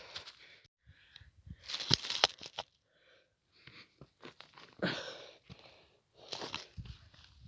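Irregular crunching and rustling footsteps on dry, rocky ground and brush, with a few hard breaths from the climb in between.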